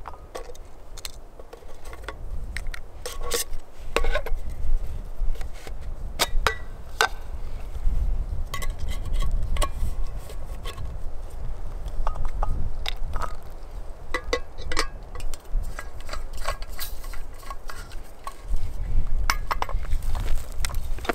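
Clinks, clicks and knocks of a Jetboil-style backpacking stove cook set being unpacked and fitted together: the cook cup, lid, burner and fuel canister handled and set down on rock. The knocks are irregular and scattered, over a low rumble.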